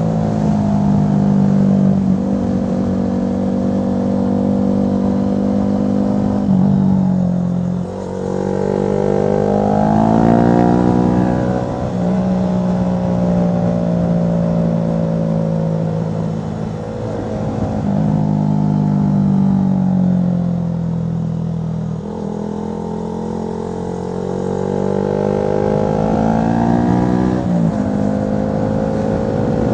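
Honda CB125R's single-cylinder four-stroke engine through a LeoVince LV One Evo aftermarket exhaust, heard from on the bike while riding. The engine note rises under throttle and drops as the rider rolls off and changes gear, several times.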